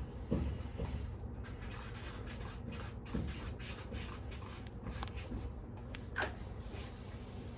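Irregular rubbing and scuffing noises with a few soft knocks, over a steady low rumble.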